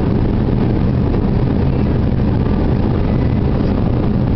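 A Dacia 1310 car driving along at a steady speed, heard from inside the moving car: a steady low rumble of engine, tyres and wind.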